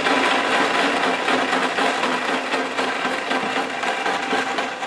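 Homemade mixer grinder's electric motor running steadily with its vegetable-slicer attachment fitted, slicing vegetables into long pieces: an even mechanical whir with a low steady hum.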